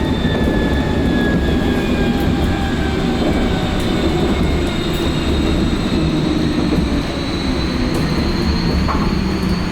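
Vossloh Kiepe Tramlink tram running on the rails: a steady rumble of wheels on track, with an electric traction-motor whine that falls in pitch early on and rises again from about halfway.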